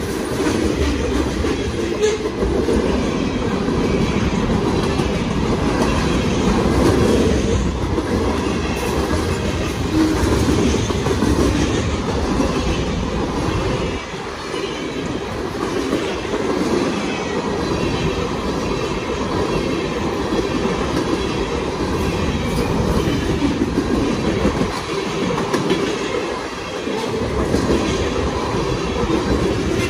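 CSX mixed freight train's boxcars, tank cars and covered hoppers rolling past, a steady rumble of steel wheels on rail with clacks as the wheels cross rail joints.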